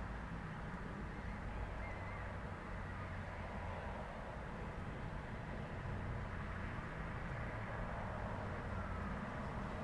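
Steady rumble of road traffic: engines and tyres of passing cars and trucks.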